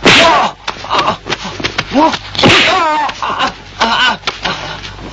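Fight-scene sound: men's short shouts, grunts and cries, one wavering in pitch about two and a half seconds in, between several sharp slapping hits and whooshes.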